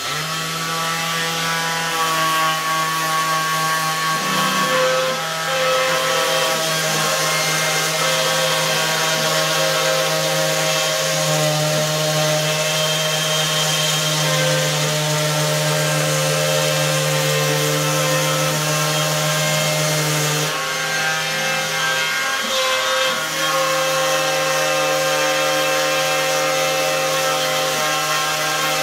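DeWalt cordless random orbital sander running continuously as it sands the stain off the raised lettering of a carved wooden sign, with a steady motor whine whose pitch shifts slightly as it is pressed and moved, dipping briefly about two-thirds of the way through.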